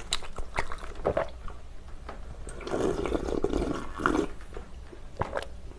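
A person slurping spicy seafood jjamppong broth straight from the rim of a glass baking dish. The longest slurp comes about three seconds in, with short wet clicks around it.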